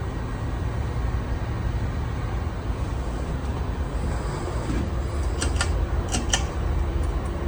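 44-inch Harbor Breeze Cedar Shoals ceiling fan running on its lowest speed and wobbling badly, under a steady low rumble. Four sharp clicks come a little after the middle.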